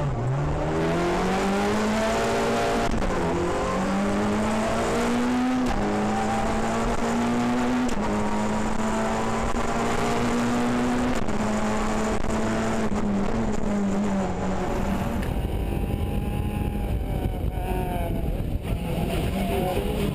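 Citroën C2 R2 rally car engine, heard from inside the cabin, accelerating hard through the gears: its pitch climbs and drops back at each of about five upshifts. From about fifteen seconds in it eases off and the pitch falls away as the car slows.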